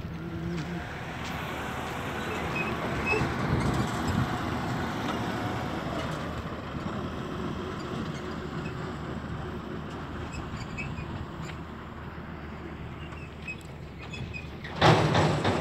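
Heavy truck engine running as the truck moves past, the rumble building over the first few seconds and slowly fading, with a short loud burst of noise near the end.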